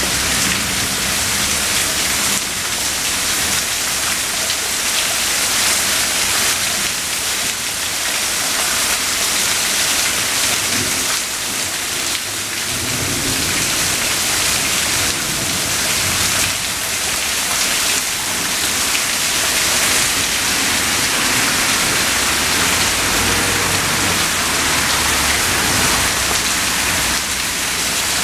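Heavy rain falling steadily in a thunderstorm, with low thunder rumbling about halfway through and again later on.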